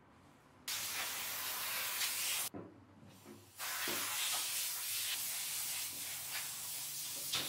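Compressed-air blow gun hissing as it clears sanding dust off a wooden frame and board. One burst of air, a short break about two and a half seconds in, then a longer steady blast.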